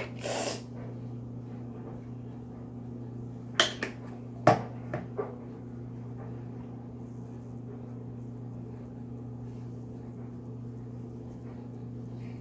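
A few sharp clicks, the loudest about four and a half seconds in, over a steady low hum.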